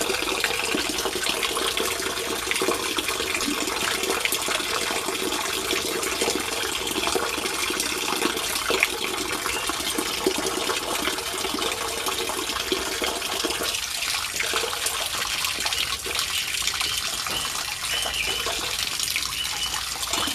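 Stream of water pouring steadily into a shallow inflatable paddling pool as it fills, splashing on the water surface.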